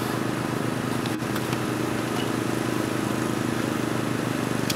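A small engine running steadily, a low, even drone with a fast pulse.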